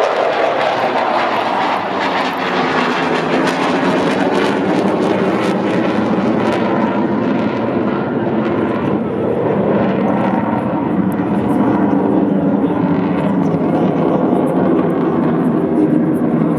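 F-16 fighter's jet engine roaring during a display flight, a loud continuous rush of noise; about halfway through the sharper hiss fades, leaving a lower, steady rumble.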